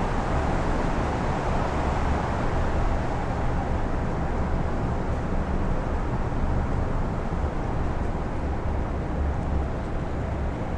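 Strong wind blowing steadily, with an uneven low rumble of gusts buffeting the microphones.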